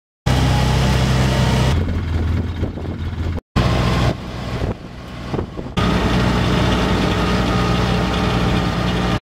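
Side-by-side utility vehicle's engine running steadily, heard in spliced clips. Its pitch shifts between clips, and it drops out briefly about three and a half seconds in.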